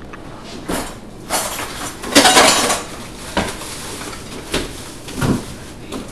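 Metal cutlery and dishes clattering and clinking in a string of short knocks, the loudest about two seconds in, as a spoon is fetched and handled.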